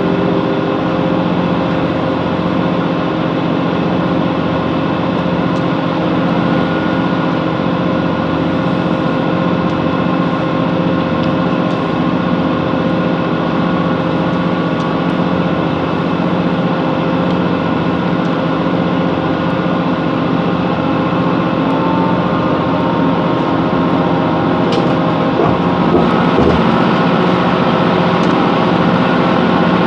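Class 165 Networker Turbo diesel multiple unit running between stations, heard from inside the carriage: a steady diesel engine and running hum with several held tones over a continuous rushing noise, growing slightly louder about 26 seconds in.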